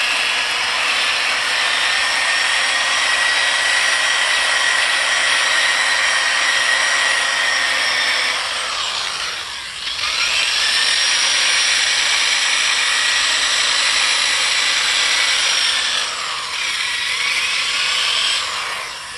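Corded electric drill spinning an abrasive wheel against wet glass pool tile, grinding off calcium deposits: a steady motor whine over a gritty grinding hiss. About halfway through the drill winds down briefly and spins back up; near the end its pitch sags and recovers once more before it stops.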